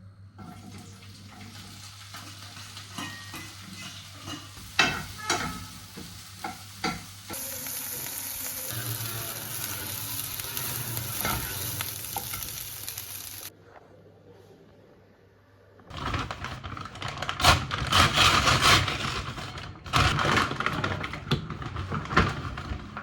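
Food frying in a pan, sizzling, with utensils stirring and clinking against it. The sound breaks off abruptly a few times, with a brief quiet gap partway through and a loud run of clatter near the end.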